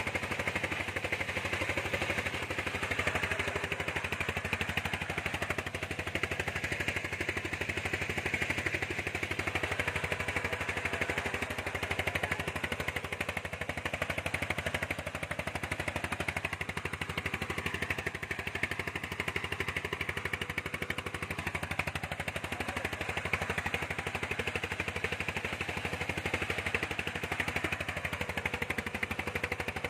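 A fishing boat's diesel engine running steadily, with a fast, even knocking beat.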